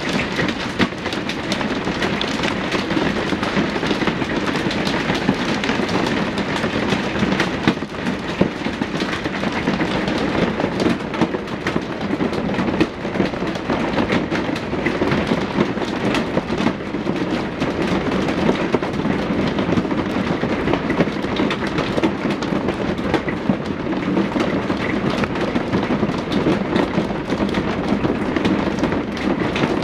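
Heavy hail pelting down: a dense, steady clatter of countless stones striking hard surfaces.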